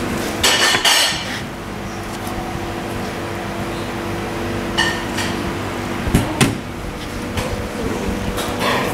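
A frying pan clattering and knocking against a plastic cutting board and steel counter as a tarte Tatin is turned out and the pan lifted off. There is a scraping clatter about half a second in, then a few separate knocks in the middle, over a steady background hum.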